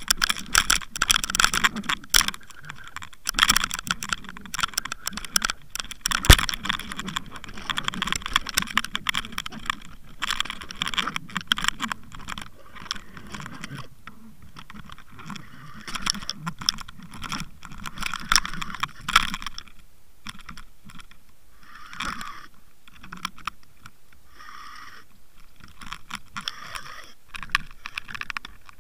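Underwater camera rig on a fishing line being jigged and reeled up: a dense, irregular clicking and rattling of the rig and tackle knocking about in the water, thinning out in the second half.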